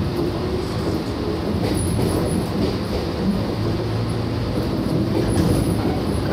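Shinano Railway 115 series electric train standing at the platform, its onboard equipment running with a steady hum.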